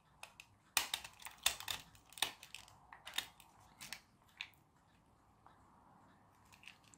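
Irregular plastic clicks and creaks from a toy truck's snap-on plastic body being worked against its clips on the chassis, the body refusing to unclip. The clicks come thickest in the first half and thin out to a few near the end.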